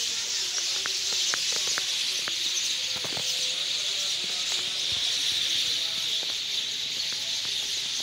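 A huge flock of mynas calling all at once, their massed chatter blending into a dense, steady hiss, with short sharper single calls scattered through it.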